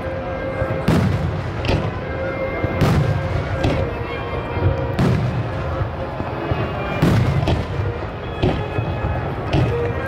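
Fireworks display: aerial shells bursting in a quick, irregular barrage of about eight deep booms.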